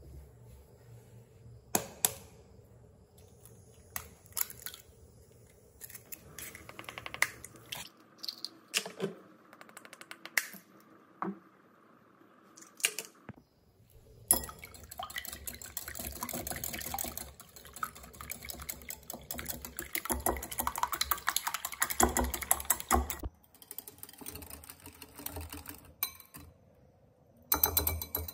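Eggs cracked one by one with sharp taps on the shell, dropping into a glass bowl. About halfway through, a wire whisk starts beating the eggs in the glass bowl: a rapid, continuous clatter of wires against glass. It stops briefly and ends with a short, louder flurry.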